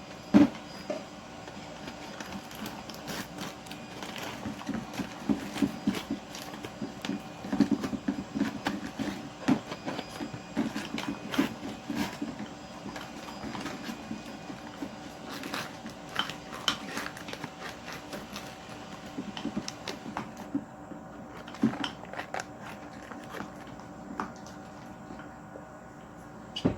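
Spatula stirring slime in a plastic container, making irregular clicks and taps throughout.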